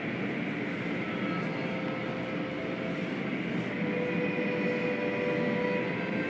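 Automatic car wash equipment running over a car: a steady mechanical rumble and hiss from the wash machinery and its hanging cloth strips, with a few faint steady tones above it.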